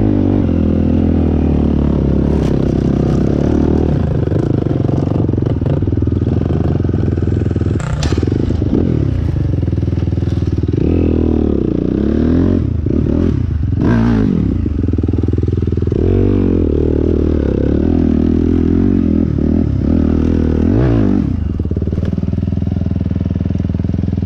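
Motorcycle engine running under load, its pitch rising and falling with the throttle, with a few short knocks or clatters along the way.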